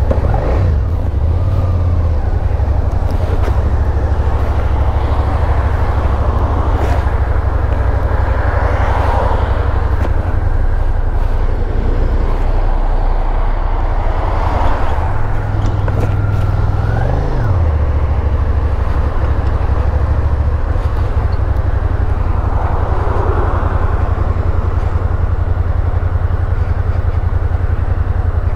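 Suzuki Gladius 650's V-twin engine running as the motorcycle rides off through traffic, its revs rising for a couple of seconds about halfway through and then dropping sharply, as at a gear change.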